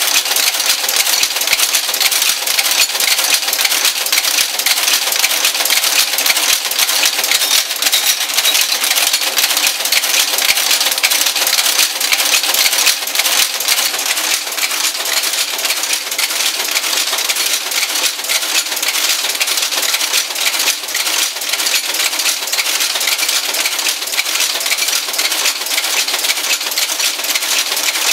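Monotype composition caster running steadily under computer control, casting type: a continuous dense clicking and clattering of its mechanism.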